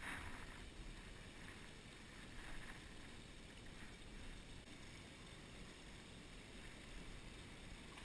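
Faint, steady outdoor background noise: a low rumble with a light hiss and no distinct event.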